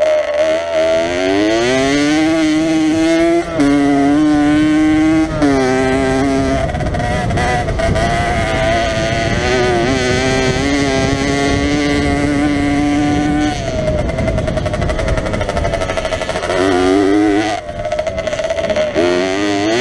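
Jawa 50 enduro motorcycle's small two-stroke single-cylinder engine running hard under load. The revs climb, then step up and down with gear changes and throttle, ease off for a moment about two-thirds through and pick up again near the end.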